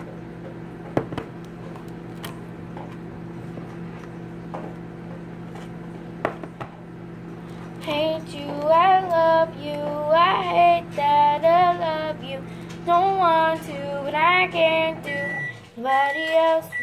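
A microwave oven hums steadily, cuts off about fifteen seconds in, then gives its high finished beeps near the end. A girl sings a tune over it from about halfway through, loudest of all. A few sharp clicks from a knife and tub come early on.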